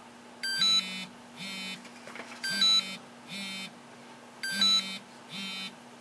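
Walkera Devo 10 radio transmitter's timer alarm going off, beeping and vibrating. Each two-second cycle has a louder electronic beep then a softer one, with the vibration motor buzzing under each, three times over.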